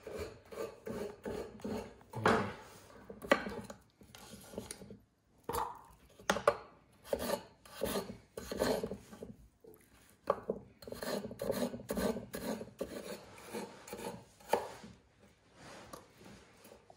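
Chef's knife cutting raw potato into dice on a wooden chopping board: a run of irregular slicing strokes, each ending in a light knock of the blade on the board.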